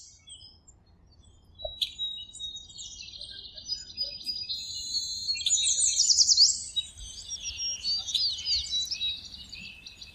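Several birds singing and chirping at once: overlapping trills, fast repeated notes and quick rising and falling whistles, sparse at first and busier from about two seconds in.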